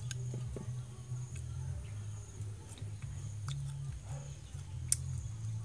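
Short crisp snaps and crunches as a fried tarantula's legs are broken off and bitten, with the sharpest snap about five seconds in. A low steady drone and a faint high hum run underneath.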